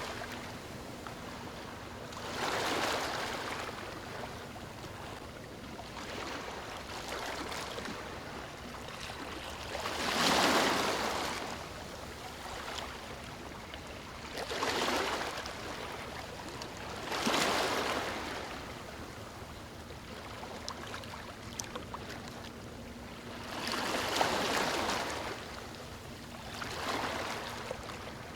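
Ocean waves washing onto a beach: a steady hiss of surf, with a louder wave breaking and rushing in every three to seven seconds.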